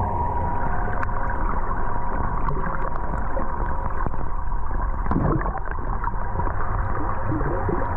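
Muffled underwater sound picked up by a camera submerged in a swimming pool: a steady low rumbling wash, with short bubbling gurgles about five seconds in and again near the end.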